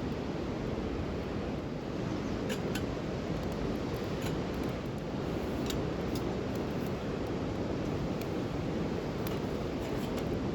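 Wood campfire burning, with scattered sharp crackles and pops at irregular moments over a steady rushing noise.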